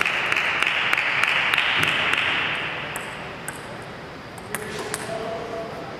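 Table tennis ball bouncing in quick clicks, about three a second, then a few scattered bounces. A hiss under the first half fades out about three seconds in.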